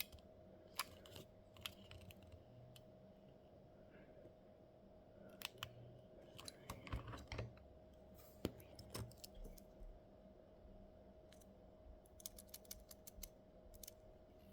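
Scattered light clicks and taps of small parts being handled, in clusters about five to seven seconds in and again near the end, over a faint steady hum.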